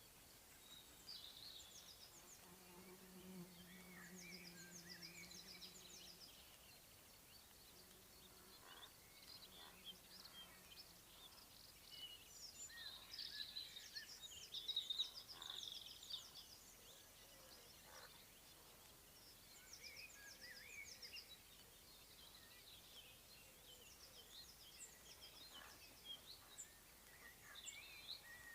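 Faint birdsong, many chirps and trills overlapping throughout. A bee passes close by about two seconds in, giving a steady low buzz for several seconds that fades away.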